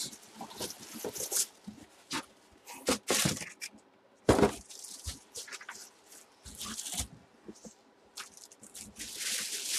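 Cardboard box being opened and handled: scattered scrapes, rustles and knocks, the loudest a thump about four seconds in. Near the end a plastic bag crinkles as a full-size football helmet in its bag is lifted out of the box.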